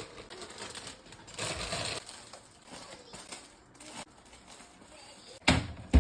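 Plastic grocery packaging rustling and crinkling as it is handled, loudest about a second and a half in, with a few light clicks. Near the end, two sharp knocks about half a second apart as items are set down.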